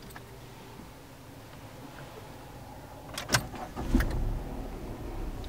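Ford Ka SE's 1.0 three-cylinder engine being started with the key: clicks a little over three seconds in as the key turns, then the engine catches at about four seconds and settles into a low, steady idle.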